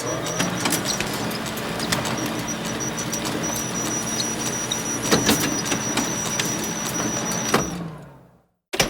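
Photocopier running: a steady mechanical whir with a low hum, a thin high whine and scattered clicks, with louder clacks about five seconds in and again later. It winds down and stops near the end, then starts again abruptly.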